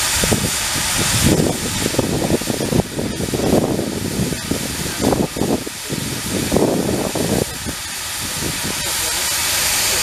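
Steam traction engine hissing steam steadily, with uneven low rumbles through roughly the first seven seconds.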